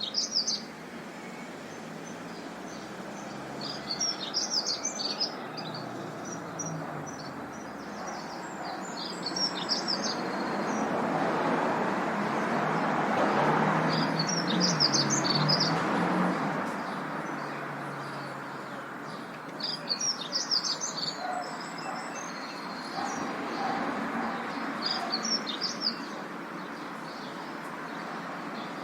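Urban park ambience: small birds chirping in short clusters every few seconds over a steady hum of distant traffic, which swells for several seconds midway as a vehicle passes.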